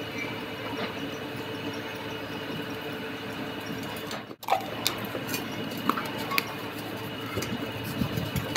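Steady mechanical hum of workshop machinery with a fixed tone. The sound cuts out briefly about four seconds in, and after that come scattered light metal clicks as a steering rack's inner tie rod is handled and screwed in.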